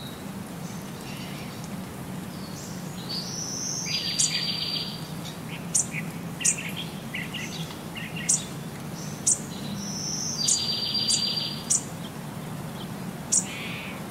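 Bird chirps and calls: short high chirps and sharp ticks, with one chirping passage that repeats about six and a half seconds later, over a low steady hum.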